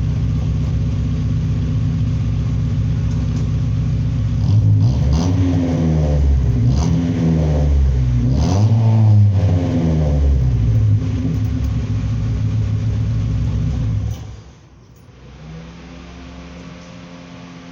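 1998 Chevy Pop's four-cylinder engine running through a modified exhaust with the original resonator removed and a bullet muffler fitted: it idles, is revved up and down several times from about four seconds in, settles back to idle, and the sound drops off sharply near the end.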